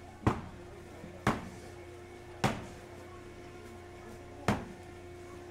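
Four sharp knocks, irregularly spaced about one to two seconds apart, each dying away quickly, over a steady low background hum.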